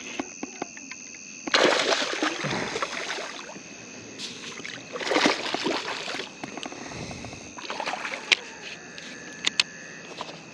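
Water splashing and sloshing around a fishing kayak in three separate bursts, each about a second or more long, with a few sharp clicks between them. Steady high tones of night insects run behind.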